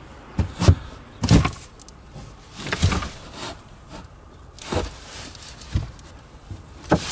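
Trunk floor board and trim panels in a car's cargo area being handled: about seven knocks and thumps, irregularly spaced.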